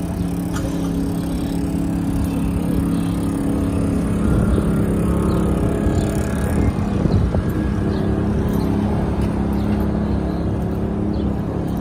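City street traffic: a steady low engine hum with the rumble of cars going by.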